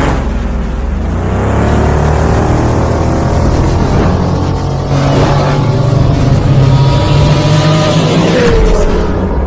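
A car engine revving as an intro sound effect, its pitch rising and falling several times and dropping away near the end.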